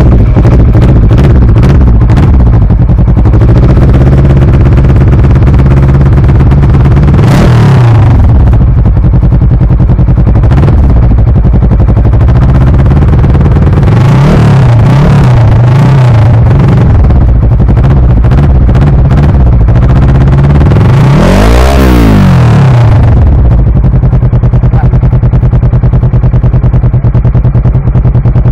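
2012 Kawasaki ER-6n's 649 cc parallel-twin engine through a full-system Akrapovic exhaust, loud at idle and blipped on the throttle. There is one quick rev about seven seconds in, a few short blips around fifteen seconds, and one longer rev that climbs and drops back around twenty-two seconds, after which it settles back to idle.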